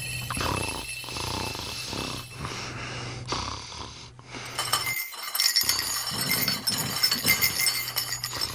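China cups, saucers and teapot clinking and rattling over a steady low hum, the clatter growing dense for the last few seconds.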